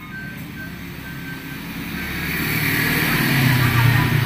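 A passing motor vehicle's engine, growing louder from about halfway through and loudest near the end.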